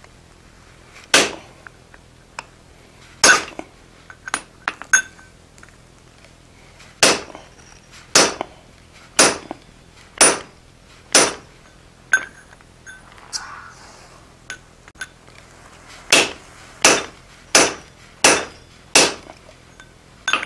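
Hand hammer striking a round punch that is being driven into a red-hot 4140 steel bar on the anvil to punch a hammer eye: a dozen or so sharp metallic blows, five about a second apart, then after a pause a quicker run of six near the end.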